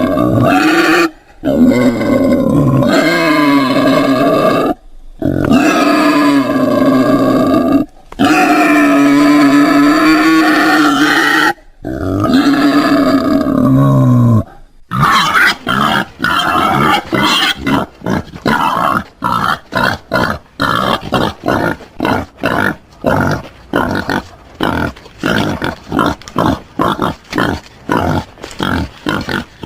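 Wild boar calling: five long, pitched calls of a few seconds each, separated by brief pauses, then from about halfway a rapid string of short grunts, roughly two or three a second.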